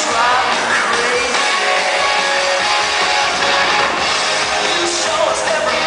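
Rock song with guitar and drums, played loud.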